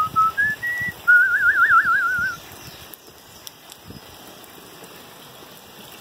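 A clear whistled phrase: a few short notes stepping upward, then a fast warbling trill for about a second, over a steady hiss of rain.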